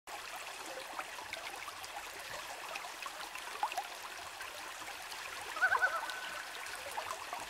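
Water lapping and trickling at a lakeshore, with scattered small chirps and a brief, louder warbling sound a little before six seconds.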